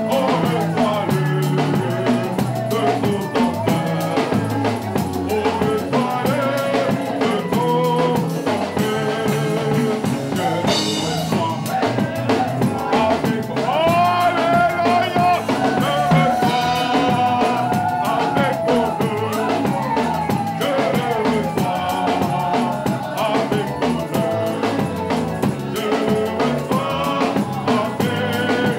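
Congregation singing a worship song with a live band, a drum kit keeping the beat.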